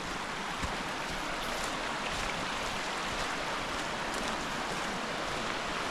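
Creek water flowing, a steady, even rush with no breaks.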